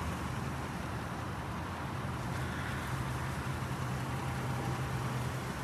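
Steady low engine hum of a vehicle over an even background of traffic noise.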